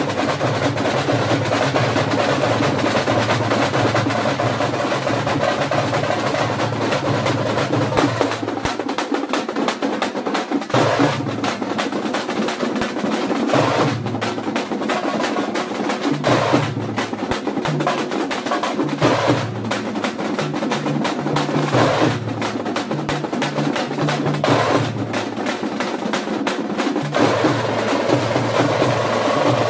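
A troupe of thamate frame drums struck with sticks, joined by double-headed barrel drums, playing a dense, fast rhythm without a break. The deeper barrel-drum beat drops out for a couple of seconds about eight seconds in, then comes and goes under the frame drums.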